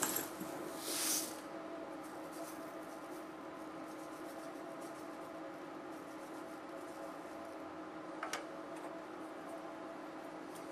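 Tiny solder balls poured onto a metal BGA reballing stencil, with a brief fine hissing trickle about a second in, over a steady faint machine hum. There is a short crackle of balls rolling near the end.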